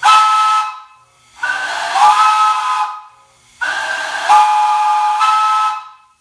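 Chime whistle blown three times on a whistle valve: a short blast, then two longer ones, each sounding a chord of several notes over a rush of hiss. In the longer blasts the pitch slides up as the valve opens further.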